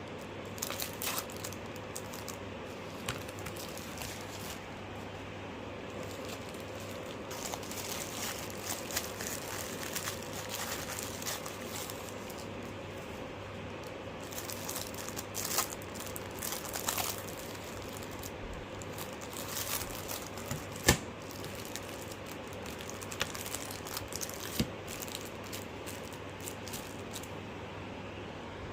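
Packaging crinkling and rustling as it is handled and unwrapped, with scattered light clicks and taps and one sharper knock about three-quarters of the way through, over a steady low hum.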